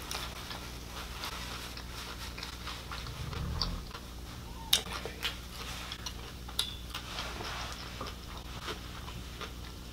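Close-miked mouth sounds of a person chewing a hard-shell taco topped with sweet pickles: scattered soft crunches and lip smacks over a steady low hum.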